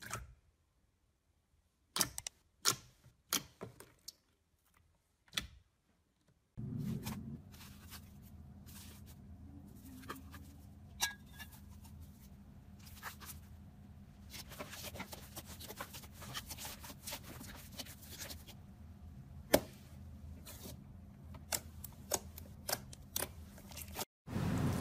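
Hand-played slime giving quiet, scattered sticky clicks and pops as it is poked, stretched and pressed. A faint steady hum sits under the pops from about six seconds in.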